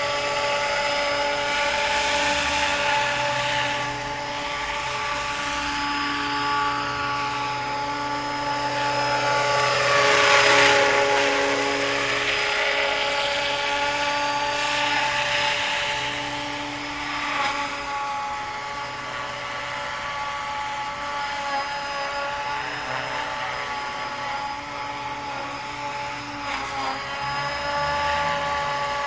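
500-size radio-controlled Bo 105 scale helicopter with a four-blade main rotor in flight: a steady, several-pitched mechanical whine over a rushing rotor sound. It swells louder about ten seconds in, then eases off.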